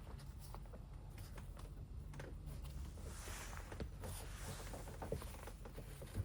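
Faint handling sounds of a foil-laminated insulated window cover being positioned: a short rustle about three seconds in and scattered small clicks, over a steady low hum.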